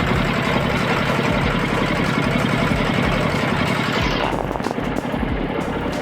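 Floating fish-feed pellet machine running with a loud, steady mechanical noise. About four seconds in the higher part of the sound drops away, leaving a lower, rougher running sound.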